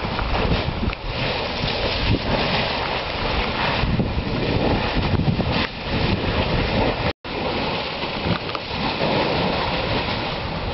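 Steady rushing, crackling noise from the churning, spattering surface of the Erta Ale lava lake, mixed with wind buffeting the camera's microphone. The sound cuts out for an instant about two-thirds of the way through, where two recordings are joined.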